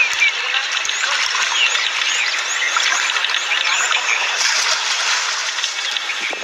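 Indistinct voices over a steady noisy outdoor background, with many quick high squeaks through the middle.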